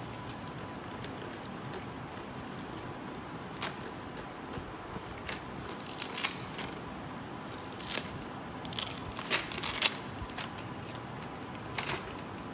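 Handling of a PECS picture communication book: pages flipped and velcro-backed laminated picture cards peeled off and pressed back, giving a scattering of sharp clicks and short rips that come thickest from about six to ten seconds in.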